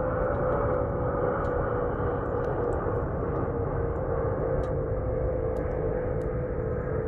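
Firewood burning in a campfire: scattered sharp crackles over a steady low rushing, with a held hum-like tone that slowly sinks in pitch.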